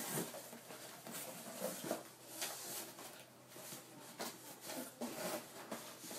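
A cardboard shipping box being handled: faint, irregular rustling and scraping as something stuck inside it is tugged at.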